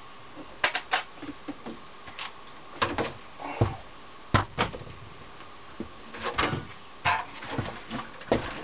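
Irregular knocks, clicks and light clatters of things being handled and set down, some in quick pairs.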